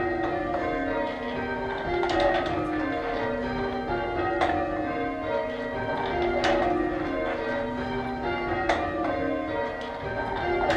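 Church tower bells being rung full-circle in change ringing, one bell after another in a steady overlapping sequence, heard from the ringing room. A sharp knock comes through about every two seconds.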